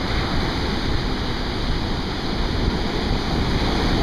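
Surf breaking and washing up the beach, a steady rushing noise, with wind buffeting the microphone.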